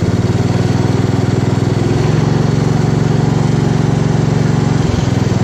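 Kohler engine of a Gravely 432 walk-behind tractor running, throttled up about two seconds in and dropping back to a lower speed near the end.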